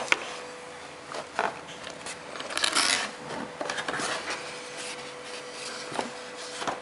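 Cardboard box and its packaging being handled: scraping and rubbing, with a few short knocks. The longest, loudest scrape comes about halfway through.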